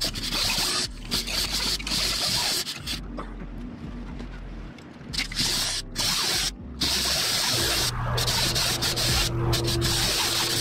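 Hand tools scraping, rubbing and knocking on metal as a wrench is worked on a transmission crossmember bolt from underneath a 1949 Willys pickup. About three-quarters of the way through, a steady low hum starts and continues.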